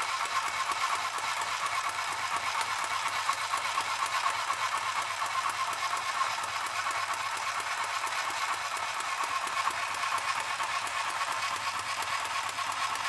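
Mini sewing machine running steadily, its needle mechanism stitching with a fast, even rattle.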